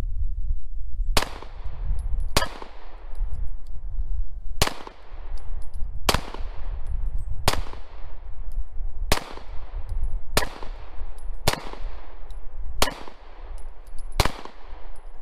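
Semi-automatic pistol fired ten times at an uneven pace, one to two seconds between shots, each report trailing off in a short echo. A steady low rumble runs underneath.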